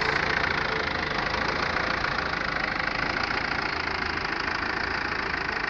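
Ford Transit's 2.5-litre four-cylinder turbo diesel idling steadily, heard with the bonnet open.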